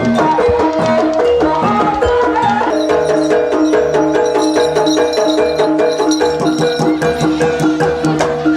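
Jaranan dance music: a gamelan-style ensemble playing repeating pitched percussion notes in a steady rhythm over sharp drum strokes. A held higher note joins about a third of the way in.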